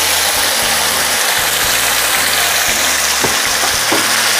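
Wet blended spice paste sizzling steadily in hot oil in a nonstick wok. Near the end a spatula starts stirring it, with a couple of light scrapes.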